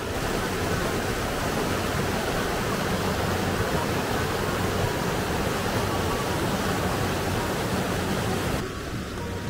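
Shallow rocky mountain stream rushing and splashing over boulders, a steady wash of water that drops off sharply near the end.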